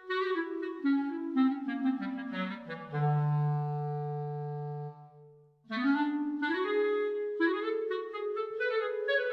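Sampled solo clarinet from the Cinematic Studio Woodwinds library playing an improvised fast legato line. A quick descending run leads into a long low held note that fades out about five seconds in. After a short gap, a quick rising run follows.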